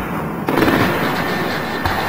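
Fireworks going off with music playing, and a sudden jump in loudness about half a second in.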